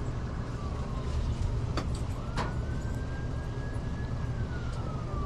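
Distant siren slowly rising and then falling in pitch over a steady low rumble, with two sharp clicks about two seconds in.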